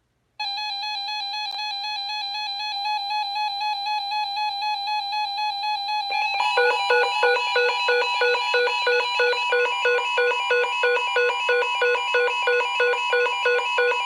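Electronic synthesized tones that start abruptly: a steady buzzy held note for about six seconds, then a rapid repeating beeping pattern of about three pulses a second.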